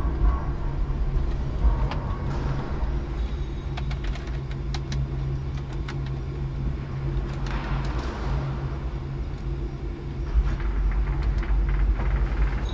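Cab of a 5-ton electric forklift: a steady low hum and rumble with scattered light clicks, and a rushing noise that swells briefly twice, about eight seconds in and near the end.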